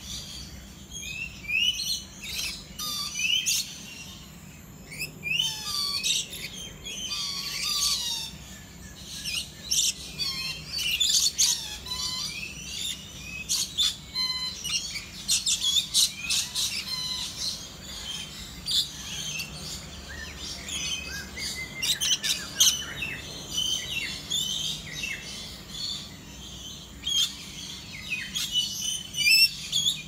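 A flock of lories and rainbow lorikeets chirping and squeaking, many short high calls overlapping throughout.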